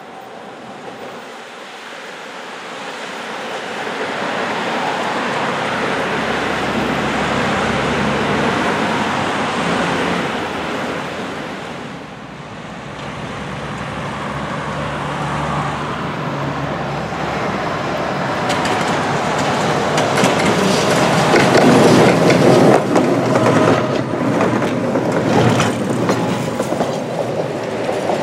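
Tatra T3 trams running past on worn, uneven track: a rumbling that builds, dips about twelve seconds in, then builds again louder, with a run of clattering knocks from the wheels in the second half.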